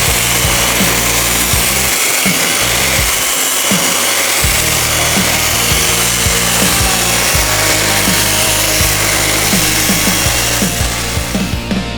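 Power carving tool cutting into wood, a steady hissing whine as the bear carving's fur texture is cut in, over background music with a bass line; the tool stops near the end.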